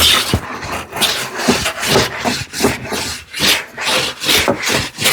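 Hand plane taking quick short strokes across a solid cherry panel, about two strokes a second, each a brief rasping swish of the blade cutting wood, to take down a hump at the center of the board.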